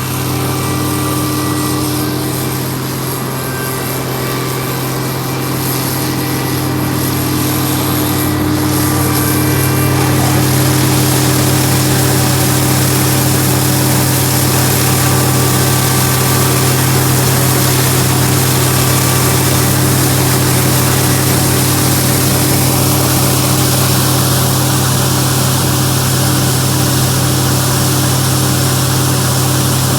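Case IH 1660 combine's 8.3-litre turbo diesel running steadily under load while harvesting corn; a constant drone that gets a little louder about ten seconds in.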